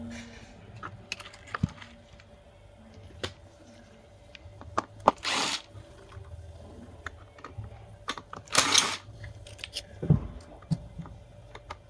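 Cordless electric screwdriver spinning screws in the rice cooker's housing in two short runs, about five and eight and a half seconds in, with clicks and small knocks of the parts being handled between them.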